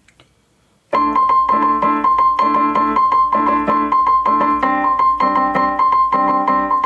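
Piano playing a string-quartet passage, starting about a second in: a high note held steady on top while chords are struck again and again beneath it. The unchanging top note is a pedal point over the moving lower voices.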